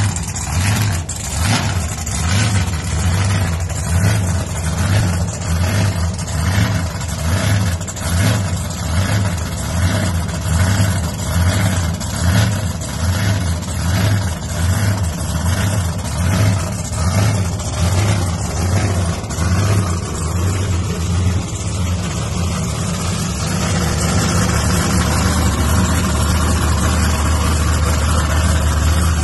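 Supercharged LS V8 in a Holden VL Commodore Group A SS idling with an even pulsing beat, about three pulses every two seconds. After about twenty seconds the pulsing fades and the engine runs steadier and a little louder.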